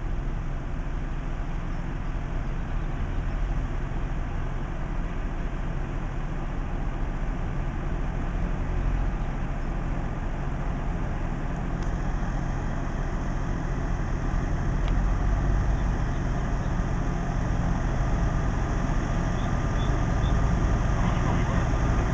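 Tractor's diesel engine running steadily as it drives through floodwater toward the microphone, slowly growing louder.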